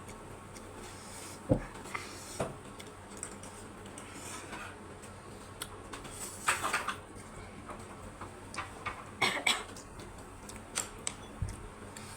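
Scattered clinks and knocks of utensils against dishes during a noodle meal, with a louder thump about a second and a half in and small clusters of clinks around the middle and near the end.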